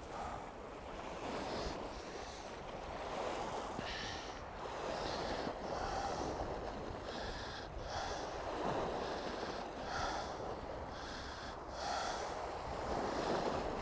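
Estuary water washing against the sea wall, with wind on the microphone: a steady wash that swells and eases every second or two.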